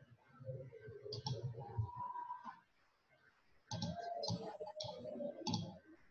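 Computer mouse clicking, about seven sharp clicks spread over a few seconds, over a faint low murmur.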